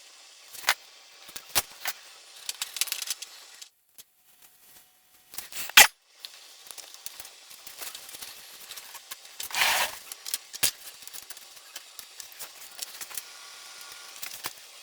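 Scattered clicks, taps and rustles of small parts being handled while assembling a foam RC airplane. The loudest click comes about six seconds in, and a short scraping rustle comes near ten seconds, after a brief silent gap around four seconds.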